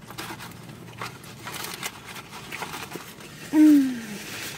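Eating sounds: chewing, with small clicks and paper rustling from napkins and food wrappers. About three and a half seconds in comes one loud, falling "mmm" hum of enjoyment.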